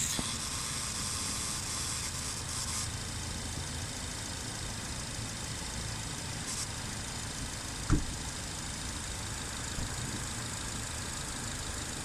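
Ford Focus RS's 2.3-litre turbocharged four-cylinder engine idling steadily, with a hiss over the first few seconds and a single sharp thump about eight seconds in. The owner finds this engine sound strange.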